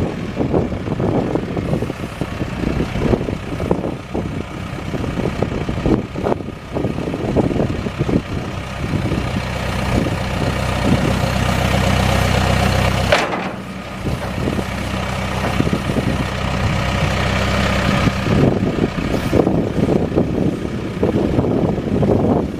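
2009 Case 590 Super Series M backhoe's diesel engine running, with irregular knocks and clanks over the top in the first half. About halfway through the engine runs louder for a few seconds, then drops back suddenly and carries on steadily.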